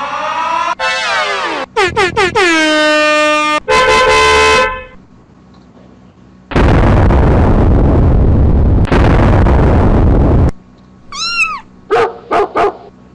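A string of short novelty sound effects played back to back: sliding, horn-like tones, then a long burst of noise lasting about four seconds, then quick rising-and-falling chirps and a few sharp clicks near the end.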